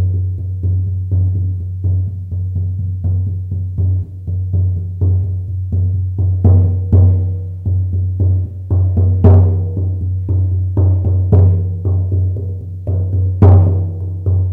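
A 50-centimetre shaman frame drum beaten in a steady rhythm, about two to three strikes a second. Its deep boom rings on between strikes, and a few strikes land harder.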